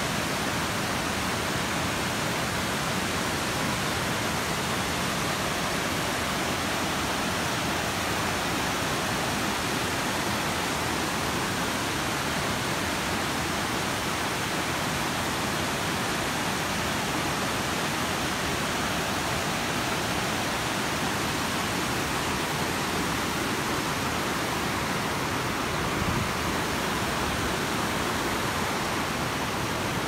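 Large multi-tiered waterfall pouring over rock ledges: a steady, dense rush of white water.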